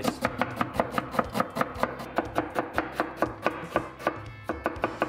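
Kitchen knife rapidly chopping an onion on a plastic cutting board: quick, even knocks of the blade on the board, about six a second, with a short pause near the end.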